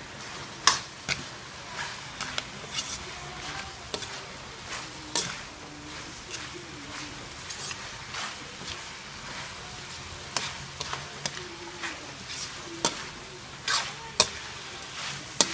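Chicken pieces frying with curry powder in a metal wok, sizzling steadily while a metal ladle stirs them, scraping and clinking against the pan at irregular moments.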